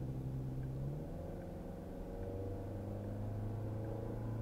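Car engine and road noise heard from inside the cabin while driving. The engine note drops to a lower pitch about a second in, then holds steady.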